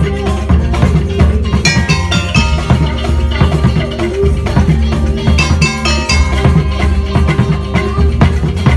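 Music with drums keeping a steady beat, bright short melodic notes and a heavy bass.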